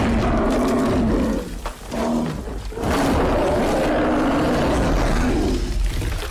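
Grizzly bear roaring, as a film sound effect: one long roar, a short one about two seconds in, then a second long roar.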